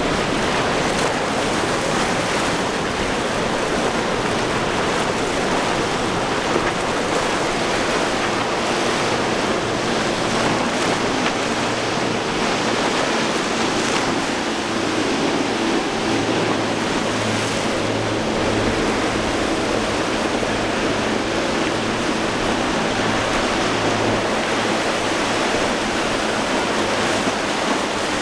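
Steady rush of breaking waves and boat-wake spray, with some wind on the microphone. About halfway through, a low steady hum of outboard engines joins in as a center-console boat with twin Yamaha 150 hp outboards runs through the surf.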